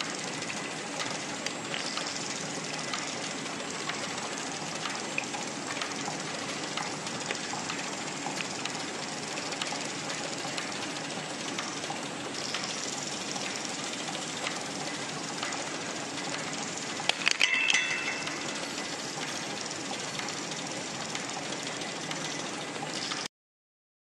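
Automatic small-bottle filling, plugging, capping and labelling line running with a steady mechanical clatter, and small plastic dropper bottles clicking against one another on the stainless steel collection table. A brief burst of louder, ringing clicks comes about three-quarters of the way through, and the sound cuts off suddenly near the end.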